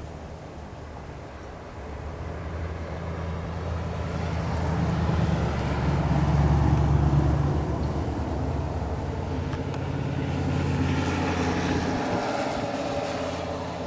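A motor vehicle's engine growing louder, then fading as it passes, followed by a second hissing swell.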